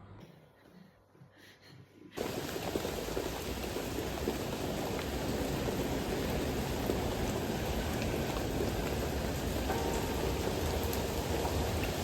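Steady hiss of falling rain, cutting in suddenly about two seconds in after near quiet.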